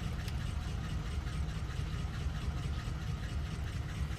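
2003 Honda car engine idling steadily, a low even rumble.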